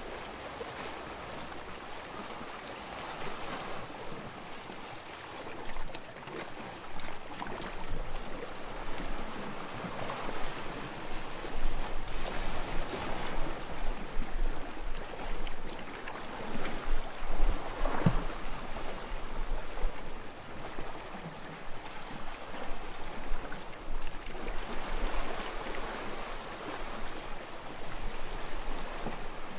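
Sea waves washing and splashing, swelling and falling every few seconds, with one sharper, louder splash about two-thirds of the way through.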